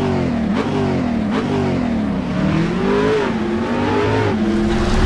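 An engine revving, its pitch rising and falling in several quick swells, then holding a steadier note near the end.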